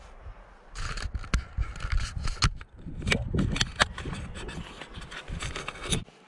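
Scrapes and clicks of a climber moving at the foot of a rock slab, starting about a second in: clothing, gear and hands rubbing close to the microphone over a low rumble.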